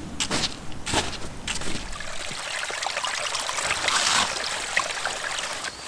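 A few footsteps, then water trickling steadily, like a small stream running, with small ticks and drips in it.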